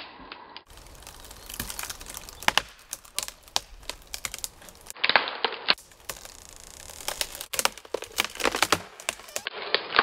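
Wood cracking and splintering: a long run of irregular sharp cracks, like a tree trunk splitting lengthwise (barber chair) as it is felled, broken by several abrupt cuts.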